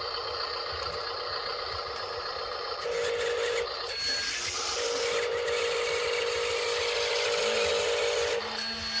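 Small electric motors of an RC toy excavator whirring steadily under a hiss of noise, growing louder briefly about three seconds in and again from about five to eight seconds in.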